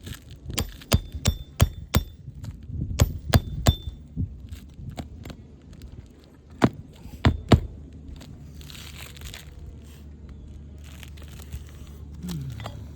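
Hammer blows on a roof snake shingle-repair tool, driving a shingle nail back down under an asphalt shingle: sharp knocks with a faint metallic ring. Five come in quick succession, then three more, then a few more between about six and seven and a half seconds in.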